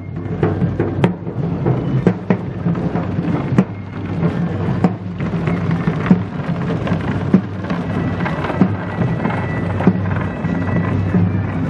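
Marching drums beating in a procession: a dense low rumble with many short hits. A high held tone comes in near the end.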